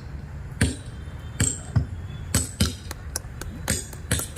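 Mimicry of footsteps on dry leaves, made by a performer: irregular crackling crunches that come faster in the second half.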